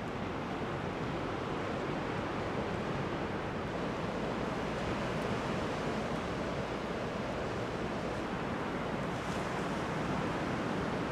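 Ocean surf breaking and washing onto a sandy beach: a steady, even rush of waves.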